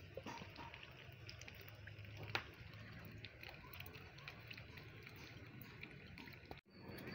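Muscovy ducks dabbling their bills in shallow muddy water: faint scattered clicks and soft sloshing, with one sharper click about two and a half seconds in.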